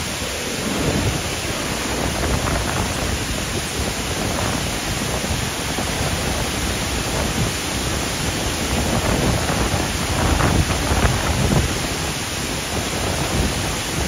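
Burney Falls waterfall rushing as many streams plunge into the pool below: a loud, dense, unbroken water noise with a low rumble that swells and eases.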